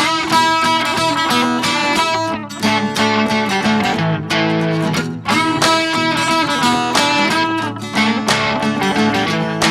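Music led by guitar, with plucked and strummed chords changing every second or so.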